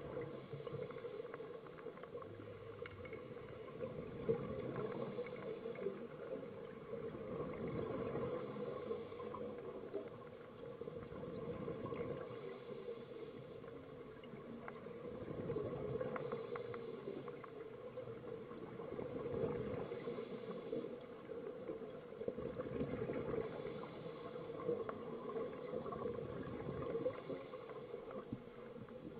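Muffled underwater sound of scuba divers' exhaled regulator bubbles, gurgling in swells about every four seconds over a steady low hum.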